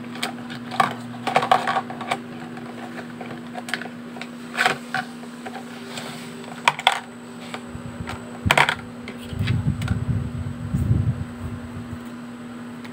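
Makeup brushes and pencils clicking and tapping against each other and a hard plastic makeup organizer as they are placed upright in it, in scattered irregular clicks over a steady low hum. A low rumble runs for about two seconds near the end.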